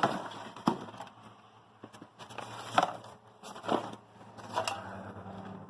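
Footsteps crunching and scuffing across a littered floor, about one step a second, over a faint low steady hum.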